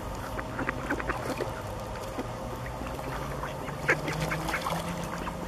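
Mallards calling in short bursts: a flurry about a second in and a louder one around four seconds in, over a steady low hum.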